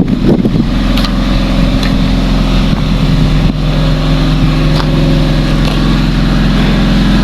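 Generator engine running steadily at a constant speed.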